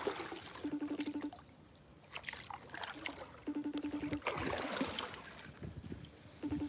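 Kayak paddling, with water trickling and dripping off the paddle. A short buzzing sound comes back three times, about every three seconds.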